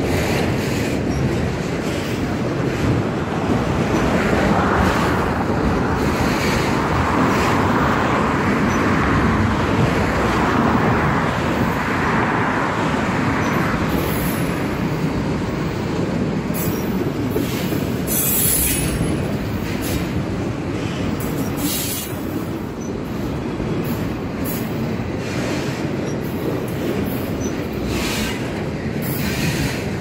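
Freight train of autorack cars rolling past at close range: a steady rumble of steel wheels on the rail, with sharp clicks and clatter from about halfway through.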